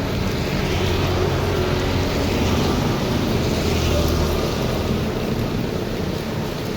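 Heavy rain driven by strong wind: a steady, dense rushing noise with a deep low rumble underneath.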